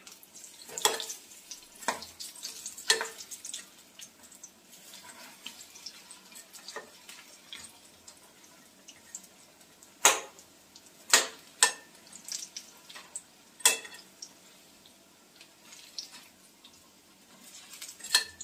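Metal tongs and a spatula clinking against an iron kadai while turning battered capsicum pakoras, with a faint sizzle of the frying oil underneath. The strikes come irregularly, about nine in all, and the sharpest ones fall roughly ten to fourteen seconds in.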